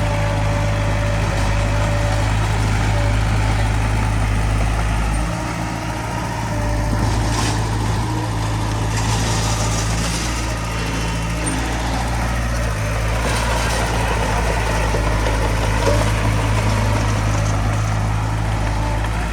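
Heavy diesel engines of earthmoving machinery running steadily, with a brief dip in level about a third of the way in and a couple of short hisses near the middle.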